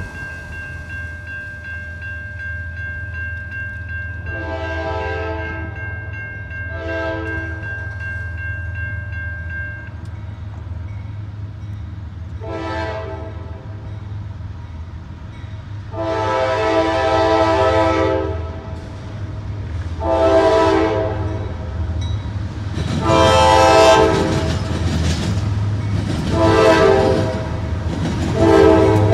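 Diesel freight locomotive's air horn sounding a series of long and short blasts that grow louder as the train approaches, over the steady low rumble of its diesel engines. A steady high-pitched whine runs under the first blasts and stops about ten seconds in.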